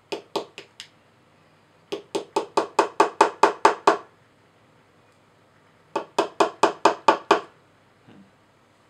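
Wooden stick scraping and chipping at the plaster block of a dinosaur excavation kit in quick, even strokes, about five a second: four strokes, then a run of about a dozen, then about seven more near the end.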